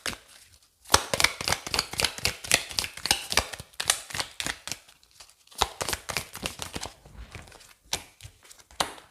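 Tarot cards being shuffled by hand: a rapid run of papery flicks and clicks, pausing about halfway through and then coming in shorter, sparser bursts.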